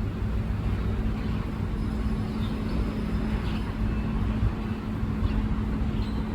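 Steady low background rumble with a constant low hum underneath, and a few faint, short high sounds.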